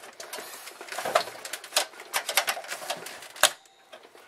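Irregular clicks and knocks of hands handling parts and cables inside an open desktop computer case, the sharpest about three and a half seconds in.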